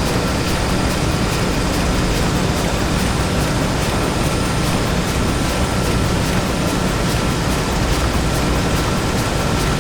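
Factory machinery ambience made as a theatre sound effect: a dense, unbroken low rumble of running machines with a thin steady whine above it and a faint regular ticking.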